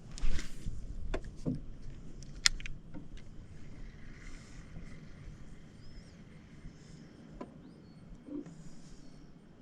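Scattered knocks and clicks inside an aluminium-free canoe as gear and hull are handled, sharpest in the first few seconds, then a single knock later on. Two faint short chirps come in the second half.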